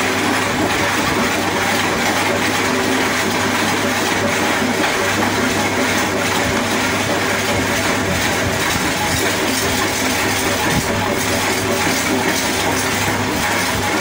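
Slatted wooden roller drum of a cotton-cleaning machine turning on its motor-driven shaft: steady, even mechanical running noise with a constant hum.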